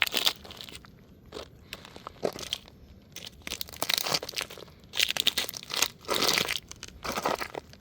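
A toy car crunching and crackling under a sneaker as it is stepped on and crushed, in irregular bursts.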